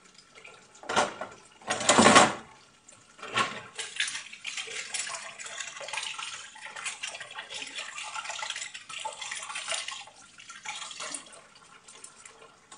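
Dishes being washed by hand at a kitchen sink. A few loud clattering knocks of crockery and cutlery come in the first three seconds or so, then the tap runs steadily with light clinks of glasses and utensils, and the water dies down near the end.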